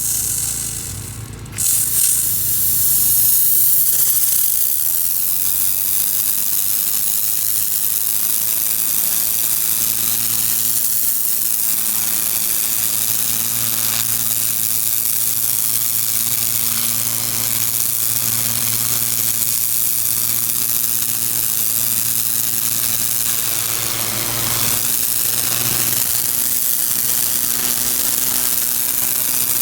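Hot water pressure washer spraying through a turbo nozzle: a loud, steady hiss of water jet over the machine's engine running. The spray drops off briefly about a second in, then resumes.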